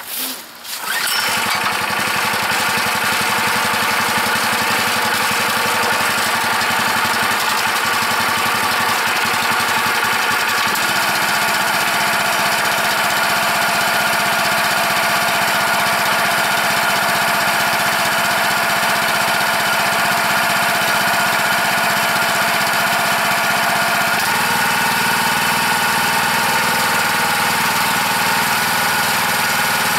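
Harbor Freight Predator 212cc single-cylinder OHV engine on a log splitter starting about a second in, then running steadily and driving the hydraulic pump. Its note shifts about ten seconds in and again about twenty-four seconds in.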